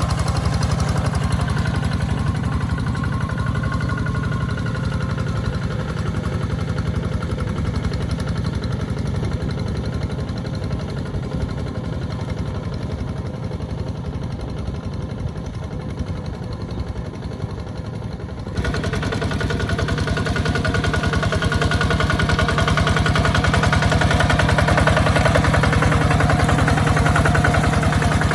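Walking tractor's engine running steadily while plowing. It grows slowly fainter, then turns abruptly louder about two-thirds of the way through.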